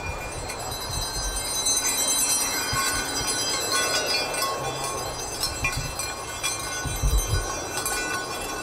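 Several high, steady ringing tones held and overlapping, with scattered low thumps underneath.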